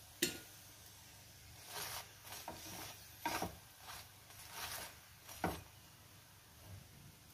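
Metal spatula pressing and scraping a til poli on a non-stick tava: several short, faint scrapes with pauses between them.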